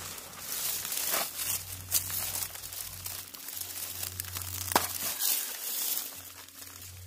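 Camouflage rain poncho crinkling and rustling as a pistol-style mini crossbow is handled and cocked, with a few sharp clicks, the sharpest about five seconds in.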